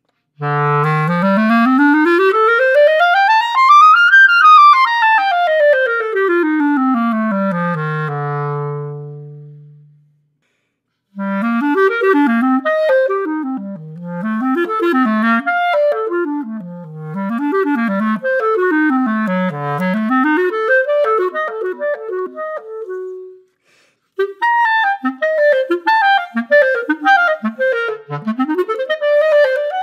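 Solo clarinet fitted with a Carbec barrel, played unaccompanied as a sound test. It opens with a smooth run from the lowest notes up to high notes and back down, ending on a held low note that fades. After a short pause come zigzagging up-and-down arpeggio passages, then a quicker passage of short notes.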